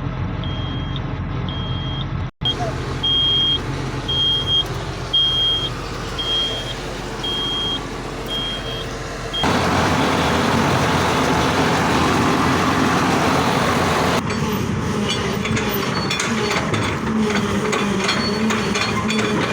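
Hyundai R210 hydraulic excavator's diesel engine running steadily, with a high-pitched warning alarm beeping about once a second through the first half.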